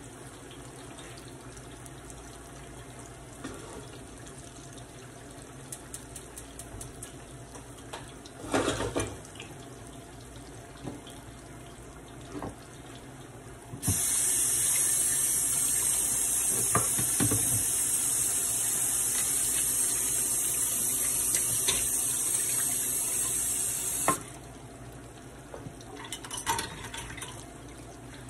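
Sliced ripe plantains sizzling in hot oil in a frying pan, with a clatter of the pan about eight seconds in. About halfway through a much louder, bright hiss starts suddenly, holds for about ten seconds, then drops away just as suddenly.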